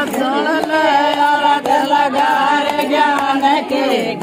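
Women's voices singing a Meena folk song, loud and continuous, with long held notes.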